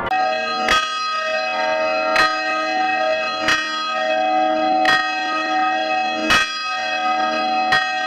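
A swinging church bell rung repeatedly, its clapper striking about seven times, mostly about a second and a half apart, with the bell's many ringing tones carrying on between strokes.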